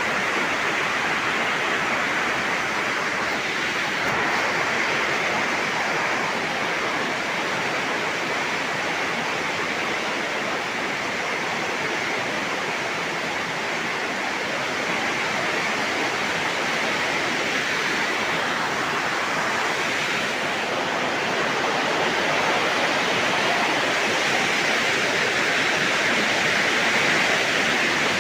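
Heavy rain falling steadily, a dense, even hiss that swells slightly near the end.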